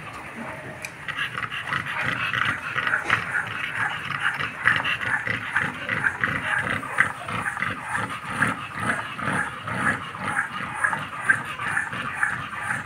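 American bully dog panting rapidly and steadily, about three breaths a second, starting about a second in.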